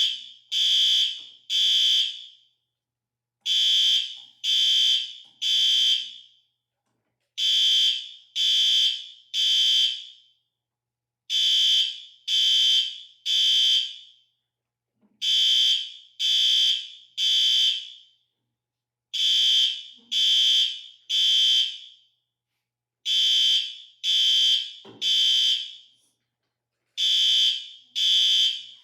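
Fire alarm sounding the temporal-three evacuation pattern. It gives three loud, high-pitched beeps of about half a second each, then a pause of about a second and a half, and the group repeats about every four seconds.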